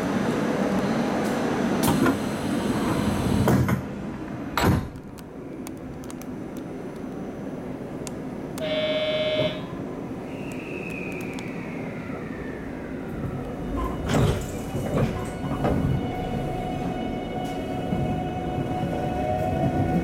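The vestibule door of a JR West 681 series train slides shut with a knock about five seconds in, and the platform noise becomes muffled. A short steady beep sounds near the middle. In the last few seconds the GTO-VVVF inverter starts to whine with rising tones as the train pulls away.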